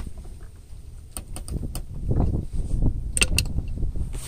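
Screwdriver turning a steel screw into the clutch cover of a 66/80cc 2-stroke bicycle engine: a few small sharp metal clicks and scrapes over a continuous low rumble.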